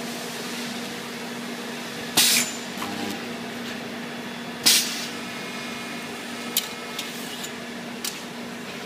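Welder making short test welds on sheet metal while settings are tuned: two brief, loud hissing bursts about two and a half seconds apart, then a few short clicks, over a steady electrical hum.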